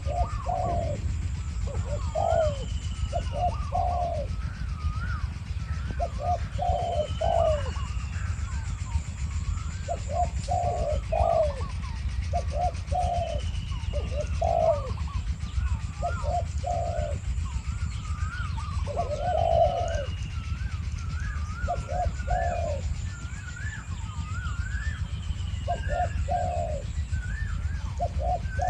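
Spotted doves cooing in short phrases of two to four notes, repeated every few seconds: a wild dove calling back at a decoy dove. Other birds chirp over them, with a short falling whistle about every four seconds, above a steady low rumble.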